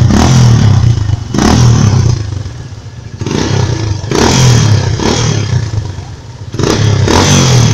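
Yamaha Fazer motorcycle with an aftermarket Way2 exhaust, warm, revved in four short throttle blips that each fall back to idle.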